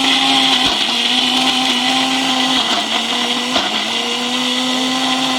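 Electric blender running steadily while blending a milkshake, its motor pitch dipping briefly two or three times as the load shifts.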